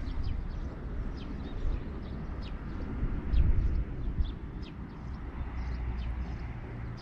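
Small birds chirping on and off over a low rumble of wind on the microphone, which swells briefly about three and a half seconds in.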